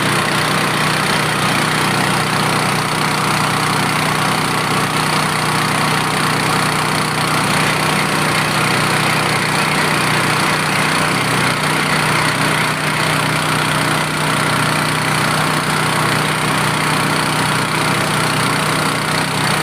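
Engine driving a drilling rig, running steadily at a constant speed.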